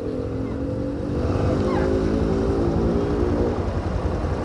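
City street traffic: a nearby motor vehicle's engine running with a steady hum over low road rumble, getting louder about a second in.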